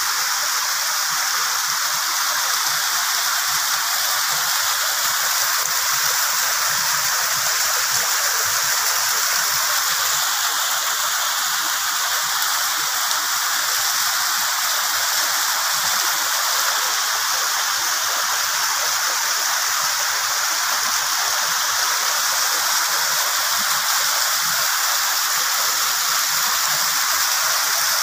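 Small waterfall spilling over mossy rock ledges: a steady rush of falling water.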